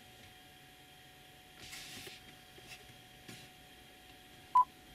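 A single short touch-confirmation beep from the Android car head unit's touchscreen near the end, as an on-screen icon is tapped. Otherwise only a faint rustle.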